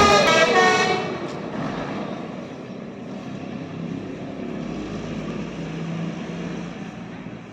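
A bus's basuri 'telolet' air horn playing a multi-note melody that cuts off about a second in, followed by the steady rumble of a bus engine running.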